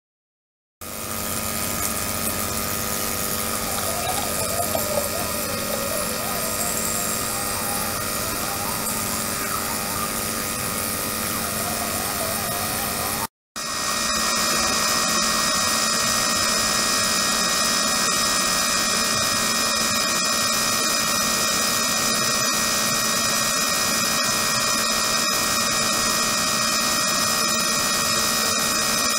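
An ultrasonic tank system running in a water-filled plastic container, with a small motor-driven circulation pump: a steady hiss carrying many steady tones. It starts about a second in, cuts out for a moment a little before halfway, then resumes slightly louder with stronger high tones.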